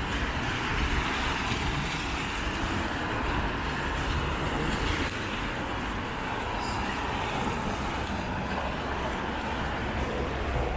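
Road traffic on a wet street: a steady hiss of tyres over a low engine rumble.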